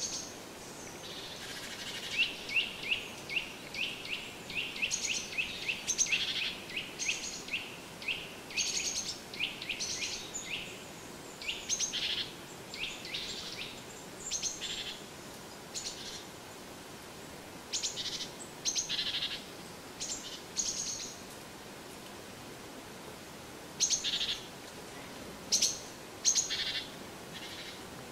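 Small songbirds calling in woodland. A quick run of short, high, downward-sliding notes, about two to three a second, gives way to scattered chirps with pauses between them.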